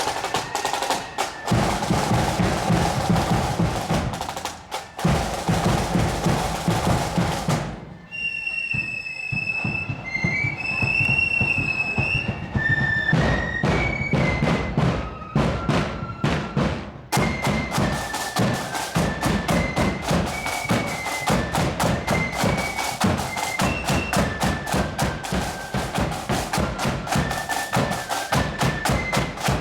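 Marching flute band playing: heavy drumming at first, a high flute tune alone for a few seconds about eight seconds in, then flutes and drums together in a steady march.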